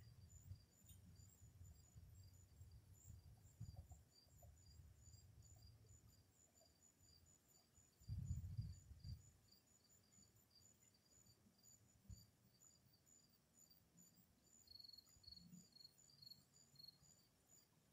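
Faint crickets chirping in a steady run of short, evenly repeated pulses, with a few low rumbles in the background, the loudest about eight seconds in.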